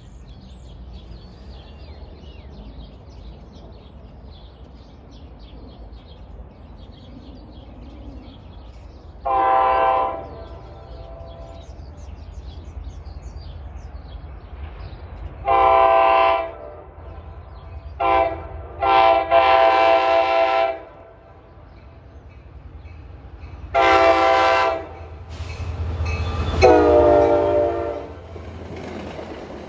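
NJ Transit diesel commuter train's horn sounding the grade-crossing pattern (long, long, short, long) as the train approaches at track speed, followed by further long blasts. Near the end the train's rumble swells and the horn's pitch falls as it passes.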